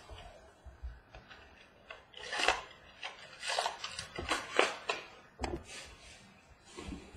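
Trading-card mini box and its foil-wrapped pack being opened by hand: a run of short rustling, tearing and scraping noises, loudest in the middle.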